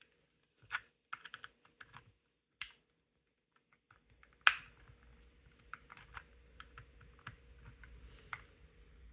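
Hard plastic clicks and taps of a pry tool working at an Xbox One controller's plastic shell to pry a grip panel loose: three sharper snaps, about one, two and a half and four and a half seconds in, then a run of small ticks.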